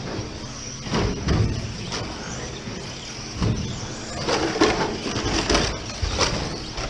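Electric radio-controlled cars racing on an indoor carpet track: a steady hiss of running, broken by irregular knocks and clatters as cars strike the track boards and land.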